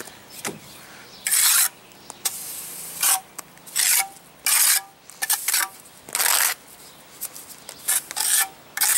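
Steel pointed trowel scraping and smoothing wet rapid-set mortar over a patch on a stucco wall, in a series of short scraping strokes about a second apart, some in quick pairs.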